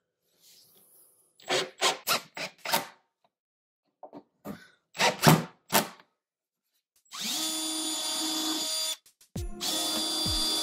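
Milwaukee cordless drill driving drywall screws into wood, its clutch set low so the screws stop flush. There are two quick clusters of short clicks, then two steady runs of the motor, starting about seven and about nine and a half seconds in.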